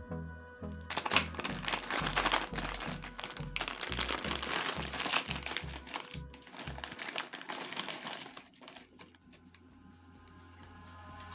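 A Lay's potato chip packet, a metallised plastic bag, crinkling loudly as it is opened and handled by hand for several seconds, stopping about three seconds before the end. Background music with a steady beat plays underneath.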